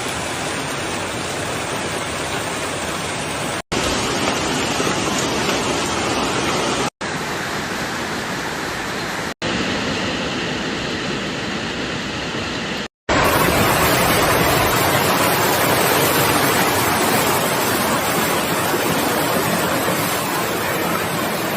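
Hailstones and heavy rain pelting down, a dense, steady hiss of ice striking the ground and surfaces. It breaks off abruptly four times and starts again slightly louder or softer each time.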